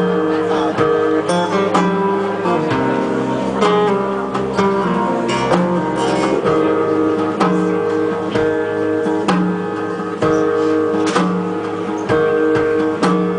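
Acoustic guitar playing an instrumental passage of picked notes over ringing chords, with no singing.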